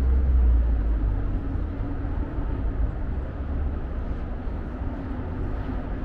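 Low rumble of a car engine running close by, loudest about half a second in and then easing to a steady level.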